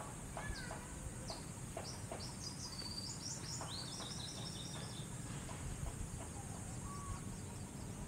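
Birds calling outdoors, with a run of quick high chirping trills in the middle over scattered short lower calls. Underneath lies a steady low rush of breeze and sea and a constant high hiss.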